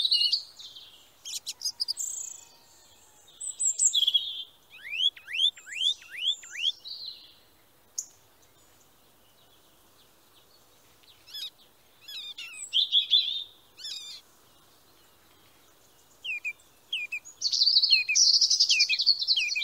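Songbirds singing in separate phrases of quick high chirps and sweeping notes, with quiet gaps between them. There is a run of fast rising notes about five seconds in and a dense, busy phrase near the end.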